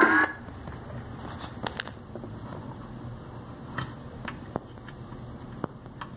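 Music with rising sweep tones cuts off abruptly a moment in, leaving a low steady hum with scattered small clicks from an RCA plug being handled at a car amplifier's input.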